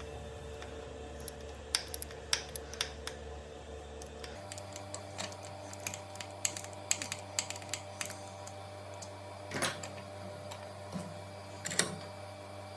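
Scattered light clicks and taps from small tools or parts being handled, over a steady hum that changes about four seconds in.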